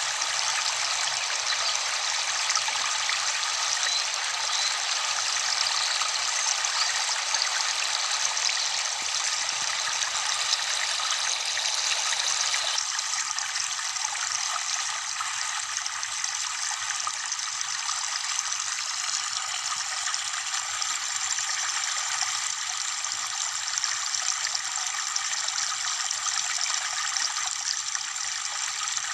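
Steady rush of falling water from a waterfall. About halfway through, its deeper part drops away suddenly and it sounds thinner.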